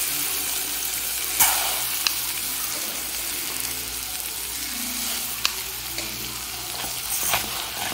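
Onion and garlic sizzling steadily in hot oil in a pot while raw rice is tipped in and stirred through with a wooden spoon. A few sharp knocks sound over the sizzle, the loudest about a second and a half in.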